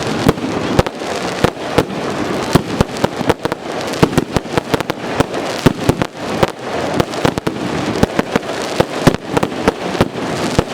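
Fireworks display: a rapid, irregular series of sharp bangs and crackles, several a second, over a continuous noisy rumble.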